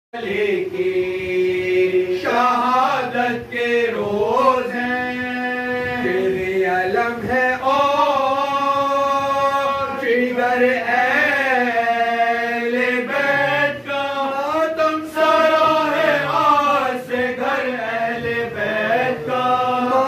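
Sozkhwani: several men's voices chanting an unaccompanied mourning elegy, holding long notes that glide and waver in pitch.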